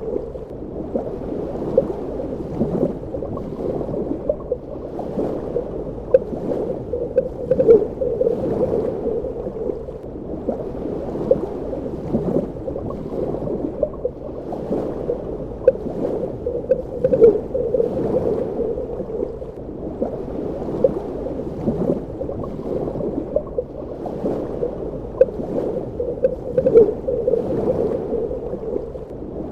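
Underwater water ambience: a steady, muffled gurgling wash, dull and low, with frequent small bubble-like pops throughout.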